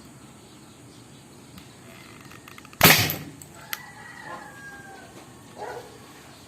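Toy gun converted to an alcohol combustion gun firing: one loud sudden bang about three seconds in that dies away over about half a second, followed by a sharp click.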